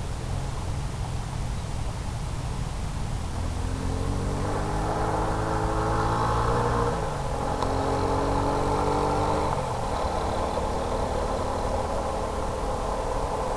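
A motor's hum comes in a few seconds in and rises in pitch, drops sharply about halfway through, sounds again at a lower pitch for a couple of seconds and fades, all over a steady hiss.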